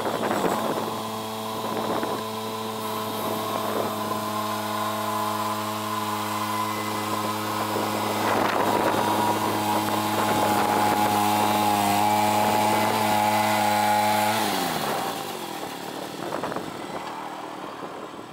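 EZ Boardwalk Jr circular sawmill at work: its small gasoline engine runs at a steady pitch while the carbide-tipped blade rips a beetle-killed pine slab into 2x4s. About fourteen seconds in, the engine winds down with a falling pitch.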